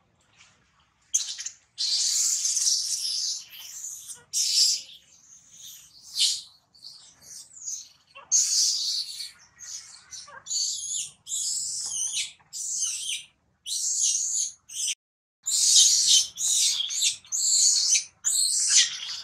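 Infant macaque screaming in distress: a rapid run of shrill, high-pitched cries, some drawn out and others short and choppy, starting about a second in.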